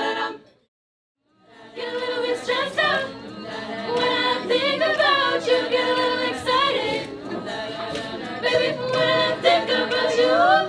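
Girls' a cappella group singing in close harmony. About half a second in the sound cuts to full silence for about a second, then the group's singing resumes.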